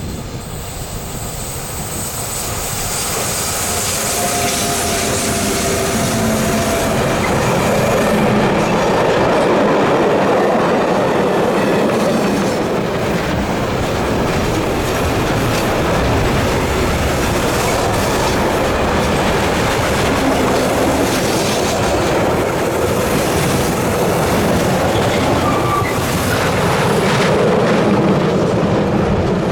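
A train rolling past on the line, its wheels clattering over rail joints and squealing, growing louder over the first several seconds and then holding steady.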